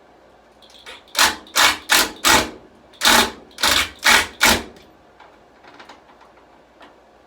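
Eight loud knocks on the wooden rack frame in two quick groups of four, each group lasting about a second and a half, followed by a few faint clicks.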